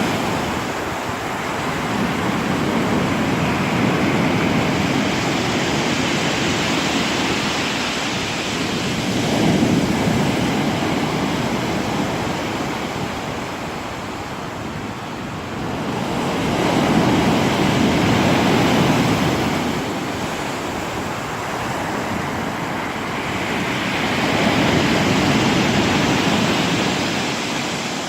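Black Sea surf: waves breaking and washing on the shore. The rush of water swells and fades in slow surges about every seven or eight seconds.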